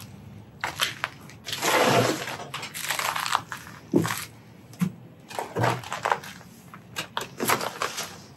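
Footsteps crunching and scraping over burnt debris and charred clutter, with a few sharp knocks of objects being stepped on or brushed against.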